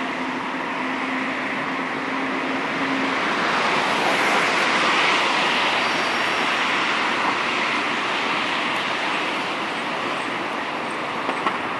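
Road traffic noise, a steady rush that swells as a vehicle passes about four to six seconds in, with a low steady hum under it for the first few seconds.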